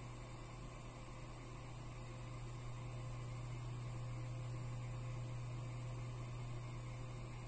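Steady low hum with a faint hiss from running computer equipment, unchanging throughout.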